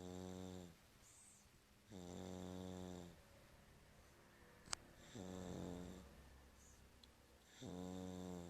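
A baby girl of about seven months snoring: four pitched snores, about two and a half seconds apart. A single sharp click comes about halfway through.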